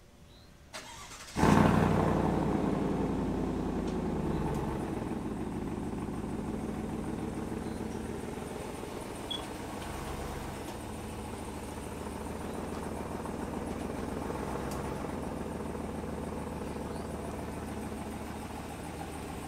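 Chevrolet Silverado pickup's engine starting about a second and a half in, loud at first and easing down over a few seconds to a steady run as the truck moves slowly.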